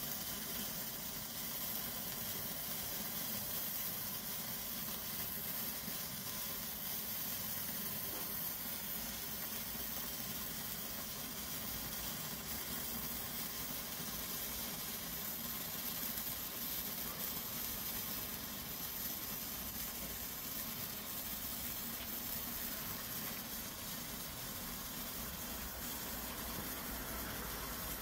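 A Weco Zauberlicht handheld Bengal flare burning green, with a steady fizzing hiss.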